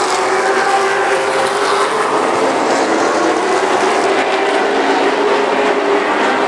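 Pack of late model stock cars racing at speed, several V8 engines running hard together in a steady, loud blend of engine notes.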